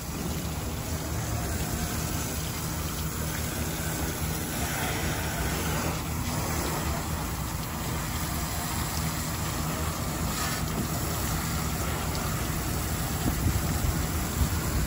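Steady rush of a self-serve car wash pressure wand spraying water over a van, with a low steady hum underneath; it grows louder near the end.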